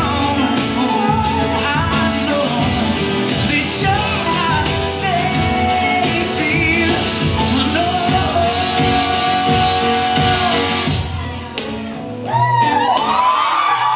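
Live song with a male singer and acoustic guitar, ending about eleven seconds in. The audience then cheers and whoops loudly.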